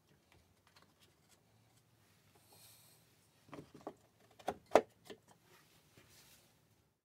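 Cast-iron bench planes being set into a wooden wall rack: faint taps and a brief scrape, then a cluster of sharp wooden-and-metal knocks about three and a half seconds in, the loudest near five seconds.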